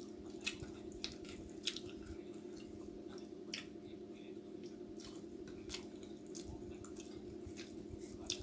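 A person eating chicken and samosa by hand: wet chewing with short clicky, squishy mouth and finger sounds coming irregularly, over a steady low hum.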